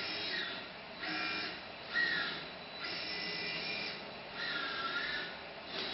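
ABB industrial robot arm's servo drives whining as it swings through its moves: a string of short high whines, each under a second, some sliding up or down in pitch as the joints speed up and slow down.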